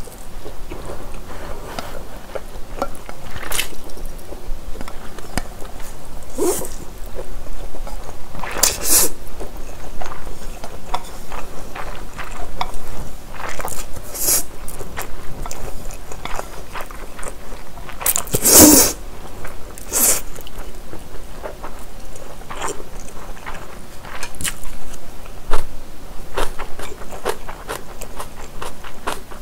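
Close-miked slurping and chewing of japchae, stir-fried glass noodles with vegetables, in short irregular wet bursts. The loudest is a long slurp about two thirds of the way through.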